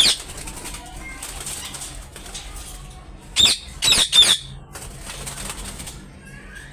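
Parrots squawking, with a quick run of three loud, shrill calls about halfway through, amid wing flapping and rustling.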